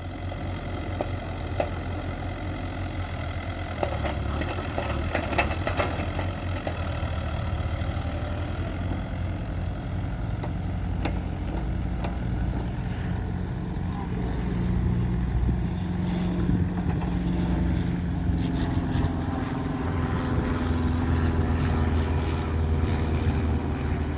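Excavator's diesel engine running steadily, with a few knocks about four to six seconds in.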